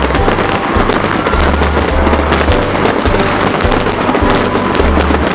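Fireworks crackling and banging in a dense, continuous barrage, mixed with music that carries a heavy bass beat.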